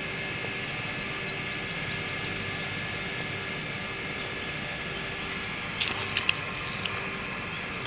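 A hooked fish thrashing and splashing at the water's surface, a few sharp splashes close together about six seconds in, over a steady background noise.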